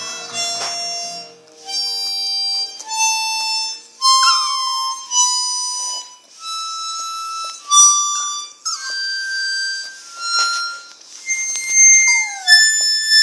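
Harmonica playing a slow run of notes while a dog howls along in high, drawn-out notes that slide downward, several times over.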